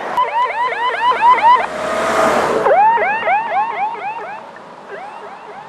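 A vehicle siren sounding a rapid up-and-down yelp, about four sweeps a second, as the vehicle passes close by with a rush of engine and road noise about two seconds in. Its pitch then drops and the siren fades as it moves away.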